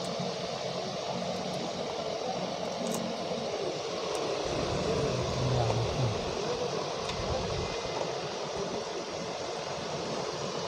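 Steady fan-like hiss and low hum of room background noise, with a few faint taps as cardboard product boxes are handled.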